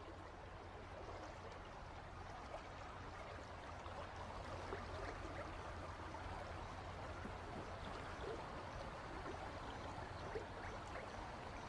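River water flowing steadily, a continuous wash with small scattered splashes.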